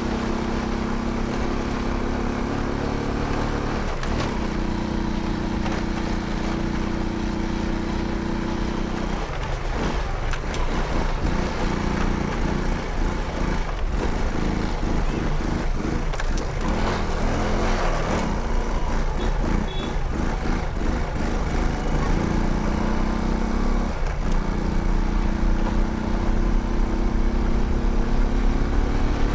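Small motorcycle engine running as the bike rides along, a steady engine hum that breaks up and turns uneven in the middle stretch and settles back into a steady note near the end.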